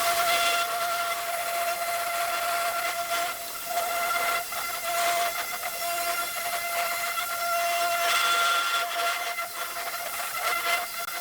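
Handheld electric power tool running steadily on wood: a constant whine over a strong hiss, with a few brief dips in level.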